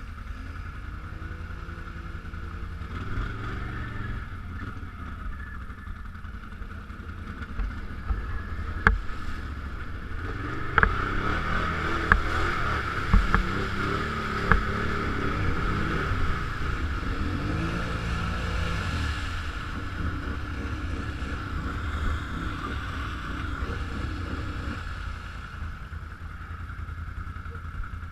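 BRP off-road vehicle engine running over rough ground, its pitch rising and falling as the throttle changes, with a few sharp knocks between about 9 and 15 seconds in.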